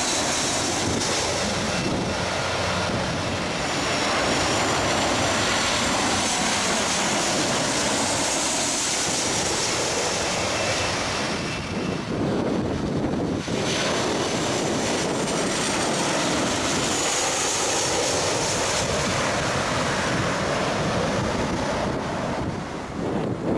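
Jet airliners landing, one after another, their engines running with a loud rushing noise and a high whine that swells and fades, once in the first half and again in the second. Gusty wind buffets the microphone.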